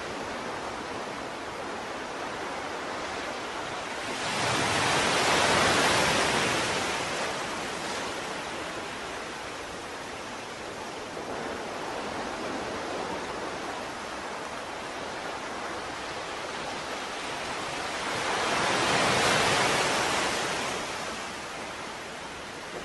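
Ocean surf: a steady hiss of water with two waves swelling up and washing out, one about four seconds in and one near the end.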